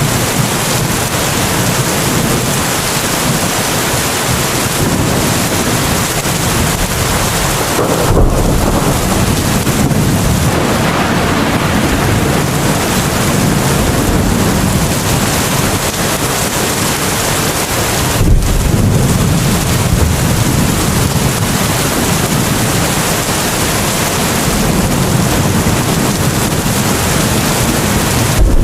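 Steady heavy rain, with low thunder rumbling up twice, about eight and eighteen seconds in.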